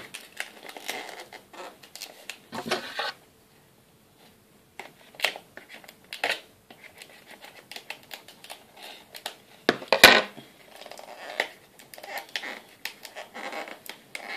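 Sealed trading-card pack being worked open by hand, its wrapper crackling and clicking in irregular bursts, with a short lull about three seconds in and one sharp snap about ten seconds in.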